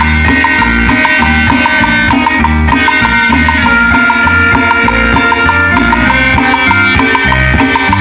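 Live Latin dance band playing an instrumental passage without vocals: bass and drums keep a steady beat under held melody notes.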